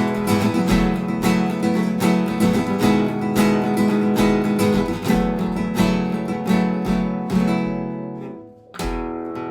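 Background music: a strummed acoustic guitar playing chords at a steady rhythm, fading briefly near the end before a new strum.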